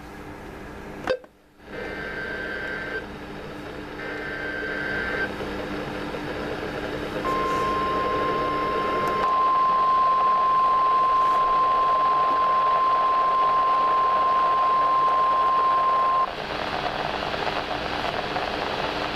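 NOAA Weather Radio alert signals over radio hiss: after a click about a second in, two short bursts of the digital SAME header data, then the single steady 1050 Hz warning alarm tone for about nine seconds, cutting off suddenly while the hiss carries on.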